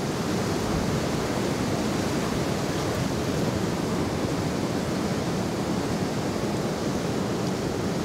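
Steady rushing noise of a strong wind.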